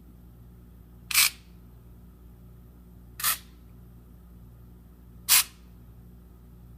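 Motorized circuit breakers of a Square D PowerLink AS panel operating one after another under remote command, each a short mechanical whirr-click, three in all about two seconds apart, over a steady low hum.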